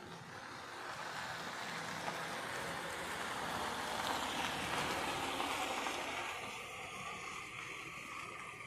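A vehicle passing on the road: a steady hiss of tyres and engine that swells over about five seconds, then slowly fades.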